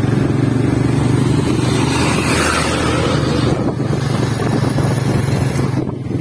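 Yamaha Vixion's 150 cc single-cylinder engine running steadily as the motorcycle is ridden along a road, with a rushing noise over it and a brief dip in level a little before four seconds in.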